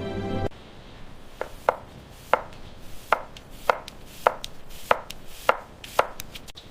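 Kitchen knife chopping food on a cutting board: a steady series of sharp chops, a little under two a second.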